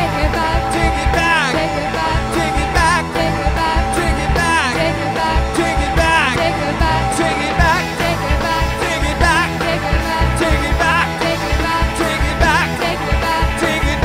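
Live rock band playing a song: a man singing lead over electric guitar, electric bass, a drum kit and a stage keyboard.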